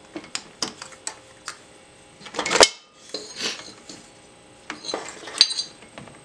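Metal parts and hand tools clinking and clanking during top-end disassembly of a Harley-Davidson Twin Cam engine: a few light clicks, then a louder clatter about two and a half seconds in, and another clatter with a sharp clink near the end.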